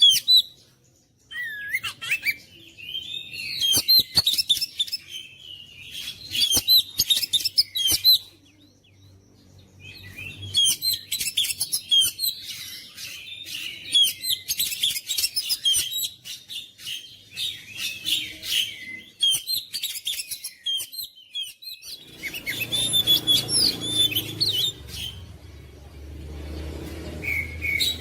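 Oriental magpie-robin (kacer) singing: quick, varied high whistles and chatters in phrases of a second or two with short gaps. After a pause of about two seconds a third of the way in, it sings a long unbroken run.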